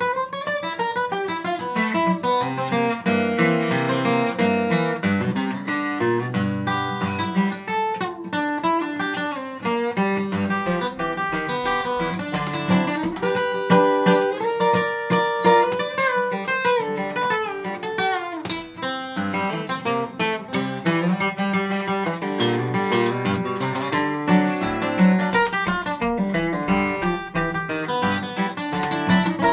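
Solo steel-string acoustic guitar played fingerstyle: an instrumental blues, with bass notes under a picked melody line.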